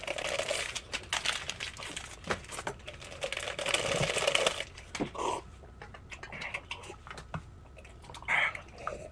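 Someone slurping and eating, with scattered sharp clicks and knocks of a spoon against a bowl. There are two longer wet slurping hisses, one at the start and one about four seconds in.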